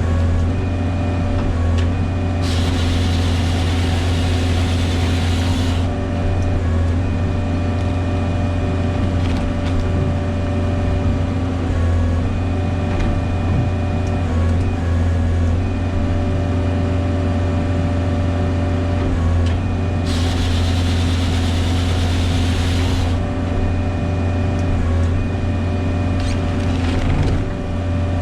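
Bobcat Toolcat engine running steadily while it drives a Halverson HWP-120 firewood processor. Twice, for about three seconds each, a loud hissing rush rises over the engine drone.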